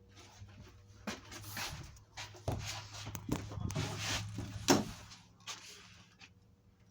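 Irregular handling noises: rustling, clicks and knocks, with one sharp click about three-quarters of the way through, over a steady low hum.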